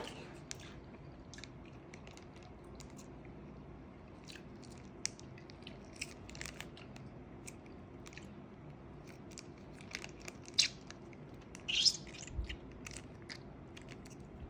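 A person chewing food, with scattered small crunches and wet mouth clicks and a couple of louder ones about ten and twelve seconds in.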